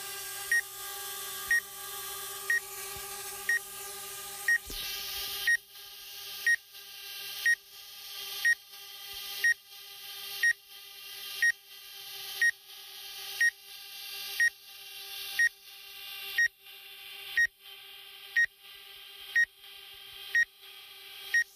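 Short electronic warning beeps from the DJI Spark's flight app, about one a second, over a steady hum while the drone flies in ATTI mode.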